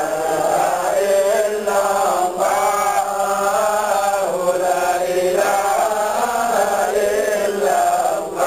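A group of men chanting together in unison in Sufi dhikr: continuous melodic phrases with brief breaks between them.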